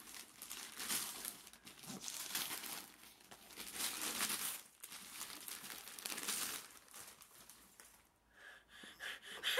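Gift wrapping paper being torn and crumpled off a large box, in several bursts of rustling and ripping that die down near the end.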